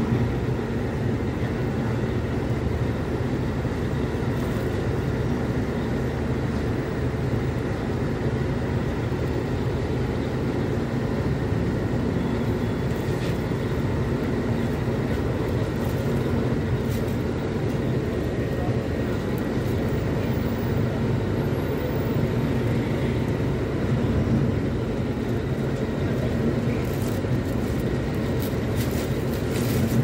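Diesel engine of a Mercedes-Benz O500U city bus running steadily, heard from inside the bus.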